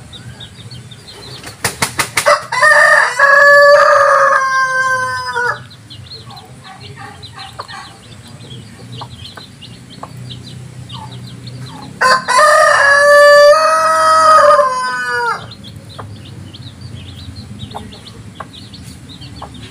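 A rooster crowing twice, each crow a long call of about three seconds that drops in pitch at the end, the second coming about ten seconds after the first. Chicks peep faintly in between.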